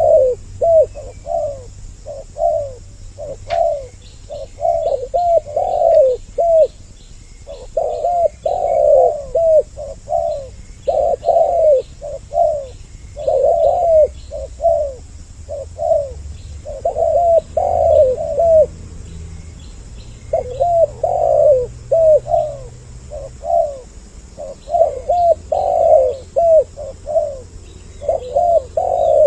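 Spotted doves (tekukur) cooing: two birds' voices in runs of rapid, repeated coos, with short pauses between the phrases. Faint small-bird chirps sound high above them.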